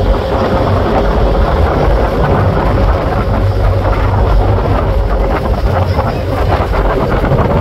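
Wind buffeting the microphone over the steady drone of a moving passenger ferry's engines.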